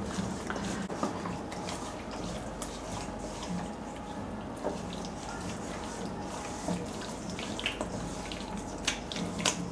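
Hands squishing whole pomfret in a wet spice-paste and mustard-oil marinade in a stainless steel bowl: soft wet squelching with scattered light clicks as fingers and fish knock against the steel.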